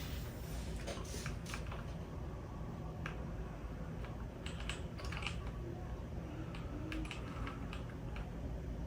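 Computer keyboard typing: irregular, scattered keystroke clicks.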